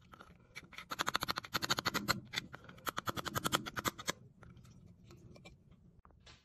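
Rapid scratching strokes of a hand tool working across the face of a carved stone seal, about eight a second, fading out after about four seconds.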